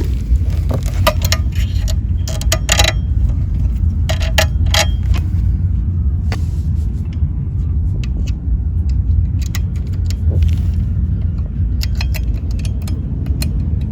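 Clinks and rattles of the boat's seat-mounting hardware being handled and fitted, in clusters of sharp taps, over a steady low rumble.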